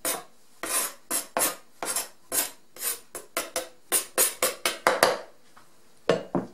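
A plastic kitchen scraper knocked repeatedly against the rim of a glass baking dish to shake off chopped dill: a quick run of sharp taps, faster after about four seconds, then a pause and two more taps near the end.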